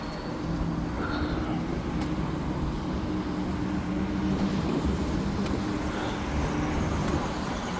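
Road traffic: a steady hum of vehicle engines with tyre noise from the road.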